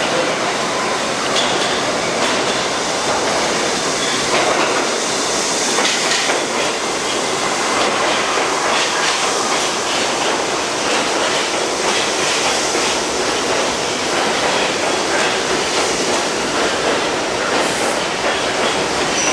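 R68 New York City subway train running into the station: a loud, steady rumble and hiss of steel wheels on the rails, with clicking as the wheels pass over rail joints.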